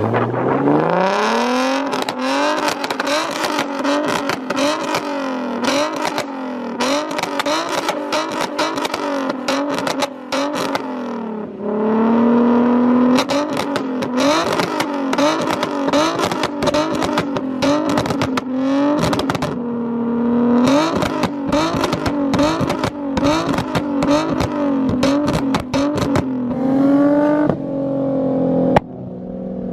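High-performance supercar engine revving hard and accelerating. Its pitch climbs and falls again and again as it is revved and shifted, with rapid exhaust pops and crackles throughout.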